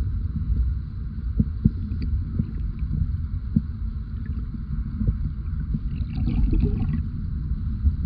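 Sea water heard from underwater: a steady low rushing rumble with scattered clicks and pops, and a short burst of crackling about six seconds in.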